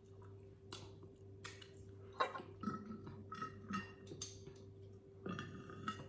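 Close-miked eating sounds: chewing with scattered lip smacks and soft mouth clicks, over a faint steady hum.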